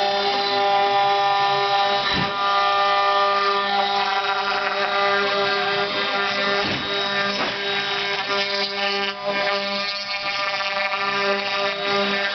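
Small CNC milling machine running: a steady motor whine made of many tones, with two brief rougher noises about two seconds and six and a half seconds in.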